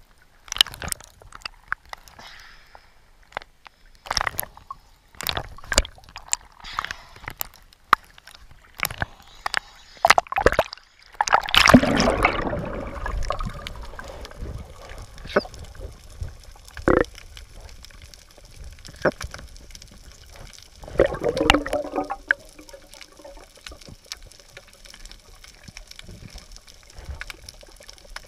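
Underwater sound picked up by a submerged camera over a coral reef. Scattered sharp clicks and knocks come first. About twelve seconds in there is a loud watery rush, and a short gurgling burst follows near twenty-one seconds, over a soft hiss of moving water.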